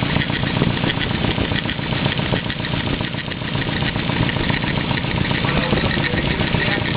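The engine of a Nissan 240SX, freshly swapped in, idling steadily with a rapid, even pulsing. The owner says it makes a weird noise that he can't explain.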